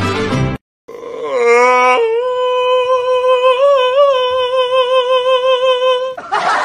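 A golden retriever's long vocal yawn: a drawn-out whining note that starts lower, jumps up about a second after it begins, then is held steady with slight wavers for about four seconds.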